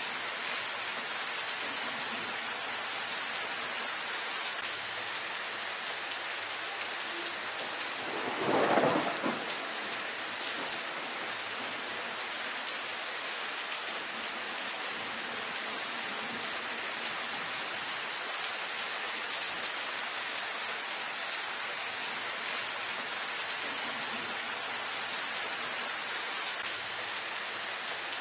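Steady rain falling on leaves, an even hiss, with one brief louder burst of sound about eight seconds in.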